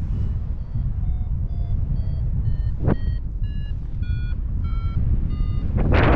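A run of short electronic-sounding beeps, about two a second, each at a different pitch like a simple tune, over a steady low rumble of wind on the microphone. A brief burst of noise comes about three seconds in, and loud wind buffeting sets in near the end.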